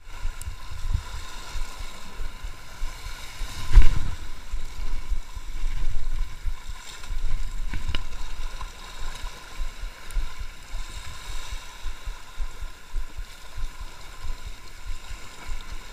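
Wind buffeting an action-camera microphone, a gusty low rumble over the wash of sea water against rocks. A single sharp knock about four seconds in is the loudest sound.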